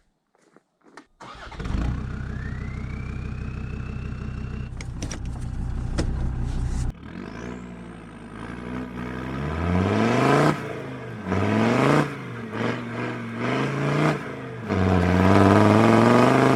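Land Rover Defender Td5 2.5-litre five-cylinder turbodiesel starting about a second and a half in, then idling steadily. From about eight seconds in it is revved in repeated blips that rise and fall in pitch. The last rev is held high near the end.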